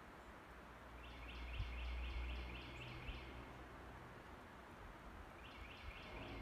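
A songbird singing a run of quick, evenly repeated notes, about four a second, then starting the same run again near the end, over a low rumble.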